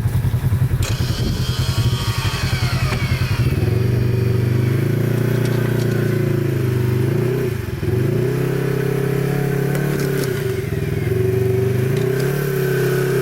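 Off-road vehicle engine running hard. It pulses unevenly for the first few seconds, then comes up to a steady high-revving note held under load, dropping back briefly a couple of times.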